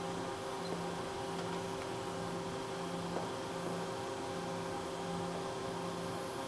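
Ohtori FTV-500HV five-axis machining center milling a wheel-shaped metal part under coolant: a steady hum and hiss with a low tone that pulses about every three-quarters of a second.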